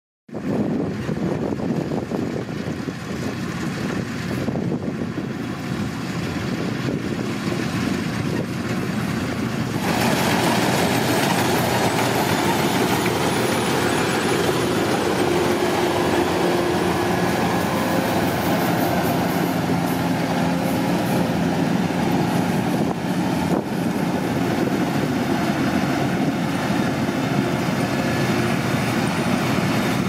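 Kubota crawler combine harvester running and cutting rice: a steady engine drone mixed with the clatter of its machinery. It gets louder and brighter about ten seconds in.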